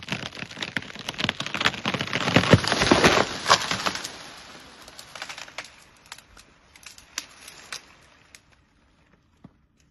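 A dead tree splintering and crashing to the ground as an elephant pushes it over: a dense run of cracking and snapping branches, loudest about two to three and a half seconds in. Scattered crackles of settling branches follow and die away by about eight seconds.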